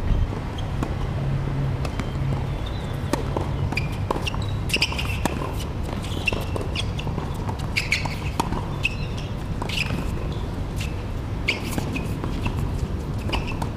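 Birds chirping and squawking in short repeated calls, busiest through the middle, over a steady low background hum. Scattered sharp clicks sound now and then.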